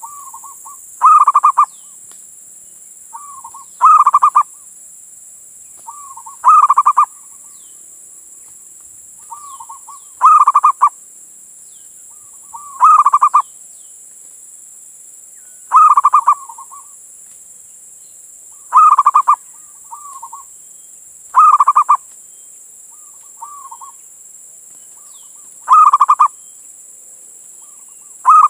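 Male zebra dove (perkutut) singing its cooing song, a short loud phrase about every two and a half to three seconds, each led by a softer note, ten phrases in all.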